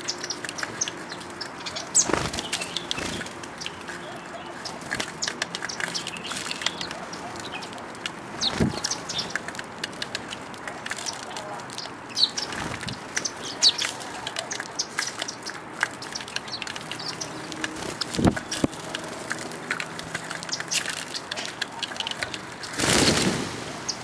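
A flock of house sparrows chirping as they feed at a seed tray, with a few sudden wing flutters. Near the end a longer, louder burst of wingbeats comes as the flock flies off.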